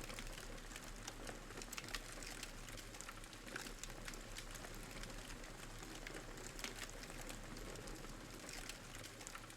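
Wood fire crackling softly: a steady low hiss dotted with many small irregular pops and snaps.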